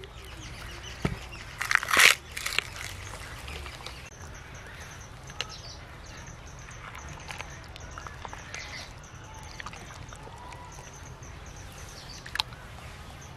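Bone and gristle crunching and cracking as a split buffalo head is pulled apart by hand, loudest in a short burst about two seconds in, then quieter handling of the wet meat with a few clicks. Birds chirp faintly in the background.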